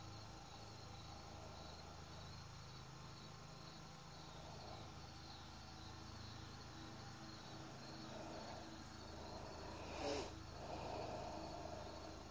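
Crickets chirping faintly, an even pulse about three times a second, over a low steady background hum. A brief louder noise about ten seconds in.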